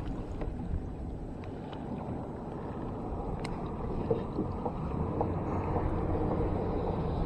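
Steady low wind noise on the microphone, slowly getting a little louder, with a few faint clicks.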